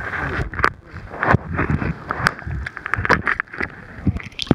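An octopus's arms gripping and working over a submerged waterproof camera, heard through the camera's own housing. The handling gives irregular knocks, clicks and rubbing over a dull underwater rumble.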